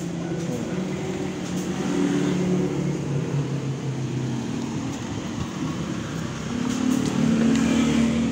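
A motor vehicle engine running, its low pitch wandering up and down and growing louder near the end.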